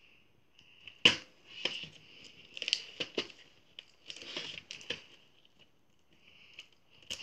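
A cardboard VHS sleeve being handled: a sharp knock about a second in, then scrapes, rustles and light taps as fingers work at its open end to pull the tape out.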